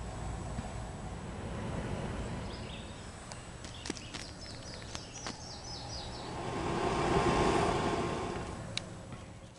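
Outdoor ambience with a steady low rumble, and a small bird chirping a quick run of short high calls about four to five seconds in. A few sharp clicks, and a broad swell of noise that rises and fades near the end.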